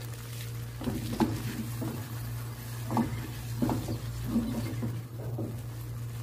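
Silicone spatula stirring beef and peppers in a nonstick wok, about seven short scraping strokes against the pan over a steady low hum, as the cornflour-thickened sauce cooks down onto the meat.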